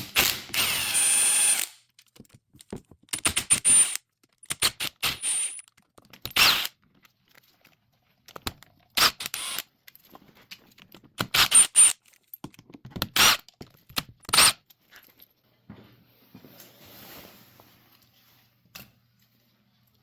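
Handheld power driver run in about eight short bursts, each a second or less, backing out the bolts that hold the intakes on a Yamaha Banshee engine.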